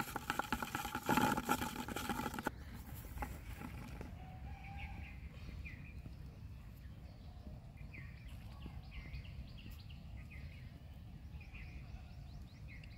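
Outdoor ambience of low wind rumble with scattered short bird chirps from about four seconds in. It is preceded by a louder stretch of rustling, handling-like noise lasting about two and a half seconds.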